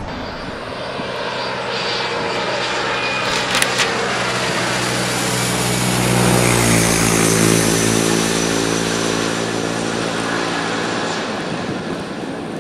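An engine passing close by: its drone builds, drops in pitch about six and a half seconds in as it goes past, then fades away.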